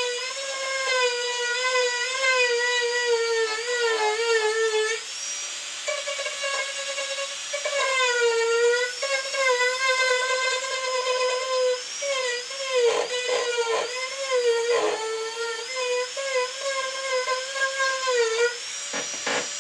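Marathon micro motor handpiece whining at high speed as its cutter undercuts wood, the pitch dipping and wavering each time the bit bites under load. The whine breaks off briefly a little before the middle, and a few short scratchy rasps come in the second half.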